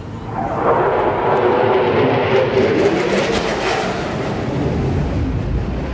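Jet noise from the USAF Thunderbirds' F-16 Fighting Falcons. It swells up about half a second to a second in, is loudest around the middle, and eases a little toward the end.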